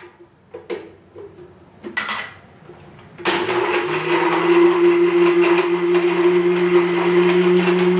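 Countertop electric blender switched on about three seconds in and running steadily with a strong motor hum, churning yogurt, sugar, water and ice cubes into lassi. Before it starts, a few light knocks and clinks.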